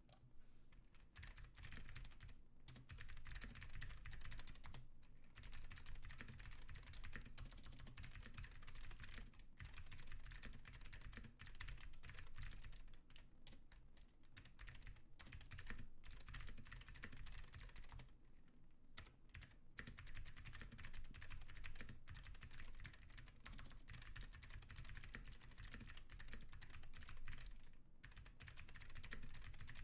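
Fast, continuous typing on a custom keyboard with clicky Alps blue switches, Leading Edge keycaps and a stainless steel plate: dense key clicks with a few brief pauses, the longest about 18 seconds in.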